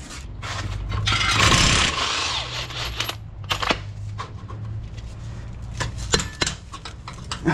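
Metal hand tools and parts scraping and clinking against a vehicle's rear suspension. About a second in there is a second-and-a-half burst of scraping, then scattered sharp metallic clicks, all over a low steady hum.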